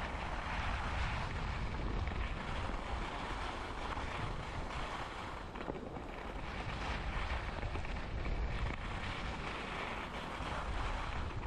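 Wind buffeting the microphone on a fast ski descent, with the hiss of skis sliding and scraping over the snow swelling and easing as they turn.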